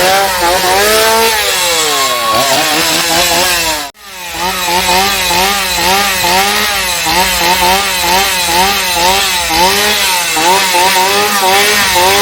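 Petrol chainsaw revving up and down over and over, its pitch rising and falling with each blip of the throttle. The sound cuts out for an instant about four seconds in.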